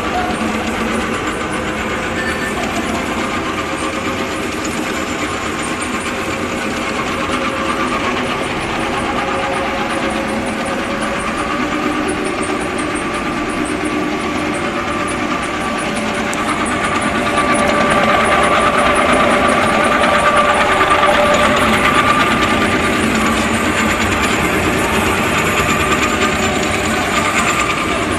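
Two-colour POF heat-shrink film printing machine running: a steady mechanical drone with a couple of steady whining tones, growing somewhat louder for a few seconds past the middle.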